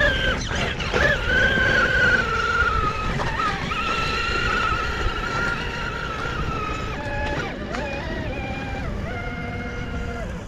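Axial SCX6 RC crawler's electric motor and gearbox whining as it climbs a dirt bank, the pitch wavering and stepping up and down with the throttle. Low rumbling noise lies underneath.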